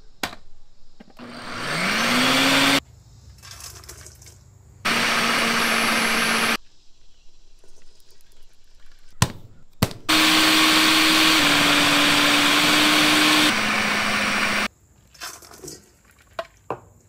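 Electric food processor motor shredding blocks of cheese, running in three separate stretches. The first spins up with a rising whine, and the longest, about four seconds, steps down in pitch twice. Short knocks and clatter come between the runs.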